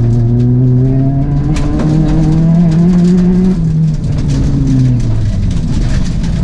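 Peugeot 206 RC Group A rally car's four-cylinder engine, heard from inside the cabin, revving steadily higher for about three and a half seconds. The revs then drop and keep falling away.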